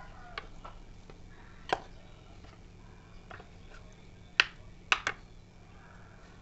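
Kitchen knife knocking on a wooden chopping board and cut potato pieces dropping into a stainless steel bowl: scattered sharp knocks and clicks. The loudest come as three close together about four and a half to five seconds in.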